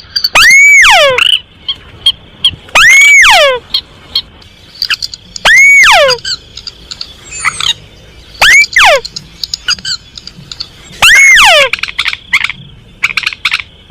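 Recorded calls of common moorhen and crake played as a hunting lure. A loud call arches up and then slides down in pitch, the same call five times about every two and a half to three seconds, with short sharp ticking notes between.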